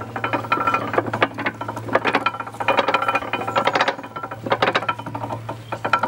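Hand-wound gear mechanism of a canal swing bridge being cranked in low ratio, its ratchet pawl clicking rapidly in repeated spells of about a second each.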